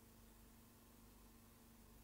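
Near silence: a faint steady hum over light hiss.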